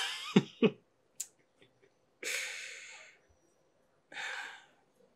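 A man gives a few short voiced huffs, like a chuckle, then two long breathy exhales, like sighs, about two and four seconds in.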